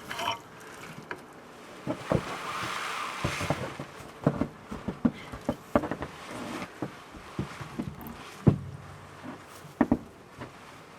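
Irregular knocks, thumps and scrapes as a beam and branches are handled and moved, with a stretch of rustling about two to four seconds in. The loudest single thump comes about eight and a half seconds in.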